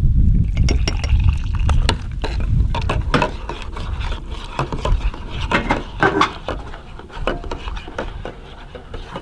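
Hot liquid poured from a kettle into a stainless-steel camping mug, then a teaspoon stirring hot chocolate and clinking against the inside of the mug, many light clicks.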